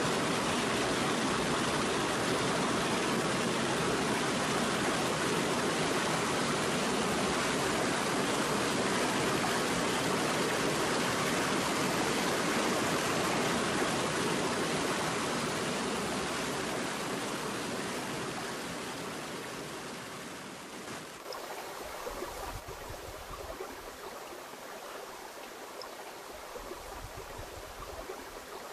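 Mountain stream rushing over rocks: a steady rush of water that fades to a quieter, softer flow about two-thirds of the way through.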